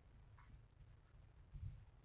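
Near silence: a faint low rumble, with a brief faint chirp about half a second in and a soft low thump about one and a half seconds in.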